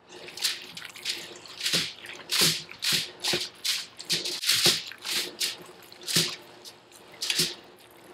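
Hands kneading and squeezing raw ground red deer meat with beaten eggs in a stainless steel bowl: a run of wet squelches and squishes, about one or two a second and uneven.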